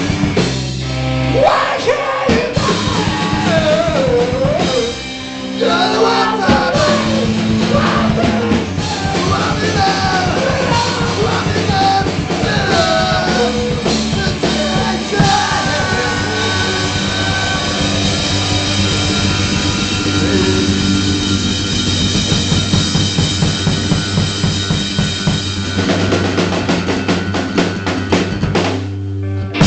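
Fast, melodic hardcore punk band playing live: pounding drum kit, distorted electric guitars and shouted vocals. The song breaks off suddenly near the end.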